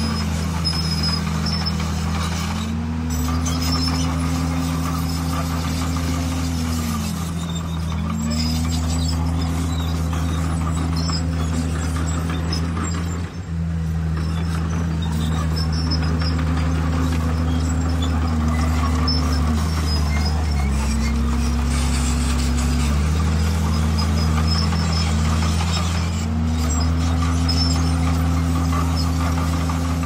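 Diesel engines of heavy earthmoving machinery running steadily. One engine note rises and falls back every few seconds as the machine works under changing load.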